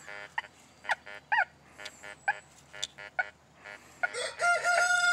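A dog whimpering in short, pitch-bending cries, then a long drawn-out whine from about four seconds in.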